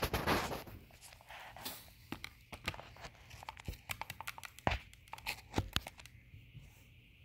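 Handling noise from a phone being picked up and carried: a loud knock at the start, then a run of clicks, rubs and knocks that stops about six seconds in.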